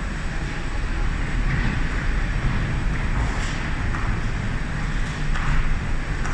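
Glass tempering furnace line running: a steady rushing, rumbling machine noise, with a few brief louder swells.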